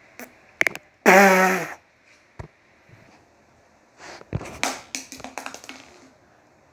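A short buzzing sound with a wavering pitch about a second in. Later comes a run of sharp clicks and light taps, from a toy being handled on a tile floor.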